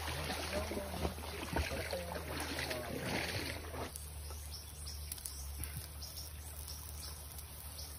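River water rushing past rocks, with a steady low rumble underneath; the sound drops suddenly quieter about four seconds in.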